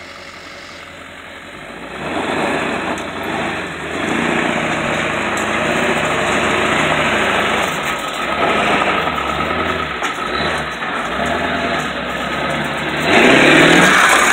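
Ford F-350 pickup's engine pulling hard under the load of a towed mobile home, its pitch rising and falling with the throttle. It grows louder about two seconds in, and a louder rush of noise comes in near the end.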